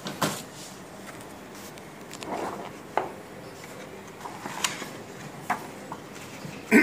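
X-ray film being handled and put up on a lightbox viewer: scattered rustles of the stiff film sheet and sharp little clicks, with a short louder sound near the end.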